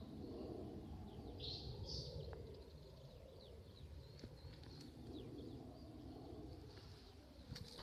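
Small birds chirping faintly, with a louder burst of song about one and a half to two seconds in, over a steady low background rumble.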